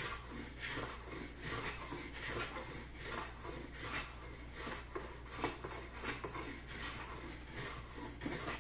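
Hand plane cutting a wooden board in short, quick strokes, about two a second, each a brief rasping swish as it takes very thin shavings.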